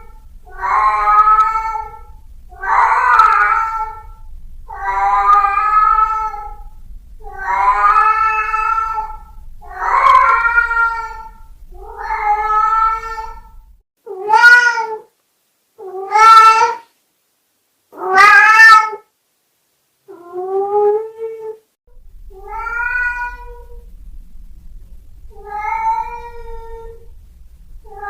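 A domestic cat meowing over and over: drawn-out calls about every two seconds, with three louder calls in quick succession about halfway through.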